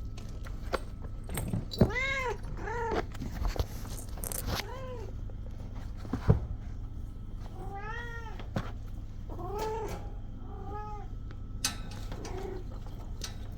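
Kittens meowing, about half a dozen short high mews that rise and fall in pitch, with a few sharp knocks in between.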